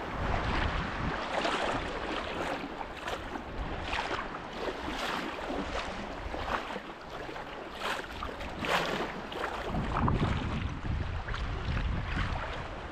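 Surf water sloshing and splashing around a person wading through it, in irregular surges about once a second, with wind buffeting the microphone.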